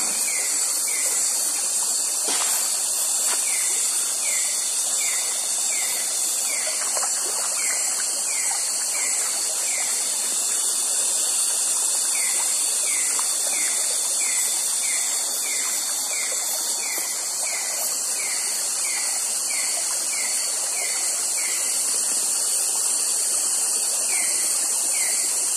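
Night insect chorus: a dense, steady high-pitched hiss with a thin steady whine, and a short rising chirp repeating about twice a second with occasional pauses.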